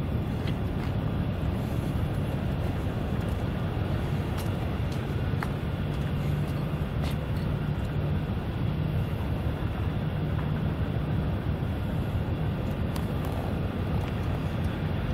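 Steady low outdoor rumble with a faint hum running through it, and a few light clicks.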